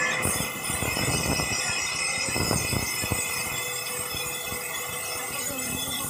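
Large sawmill band saw running and ripping a teak plank: a steady high metallic whine from the blade and wheels over the rasp of the cut, with some irregular low knocks in the first few seconds.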